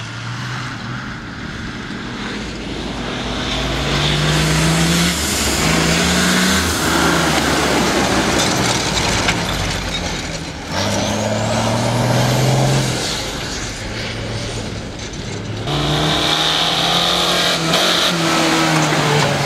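Off-road competition 4x4 engines revving hard as they accelerate, their pitch climbing and dropping repeatedly through gear changes, with tyre and dirt noise over the top. The sound jumps abruptly about halfway through and again about three-quarters through.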